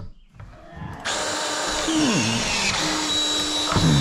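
Power drill starts about a second in and runs steadily. Its motor pitch dips twice, the sign of it bogging briefly under load as it bites.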